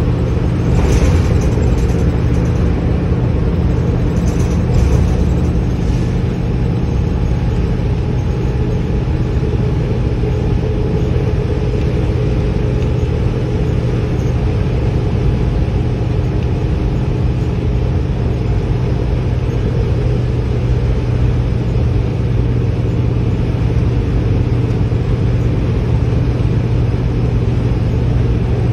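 Steady interior drone of a Gillig Advantage transit bus under way, heard from the passenger cabin: a constant low engine hum mixed with road noise.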